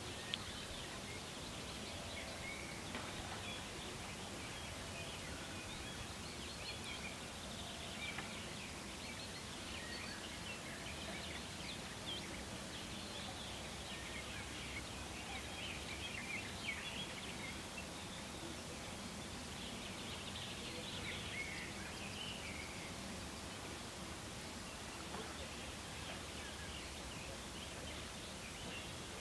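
Outdoor ambience of many small birds chirping and singing, with short calls overlapping continuously, over a steady low background noise.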